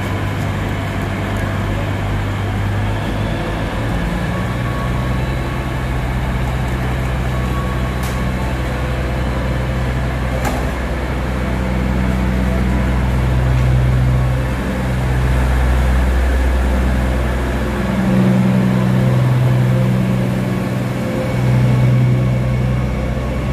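A diesel multiple-unit train's engines droning as it rolls slowly into the platform. The low note steps up about four seconds in and shifts several more times as the train pulls alongside.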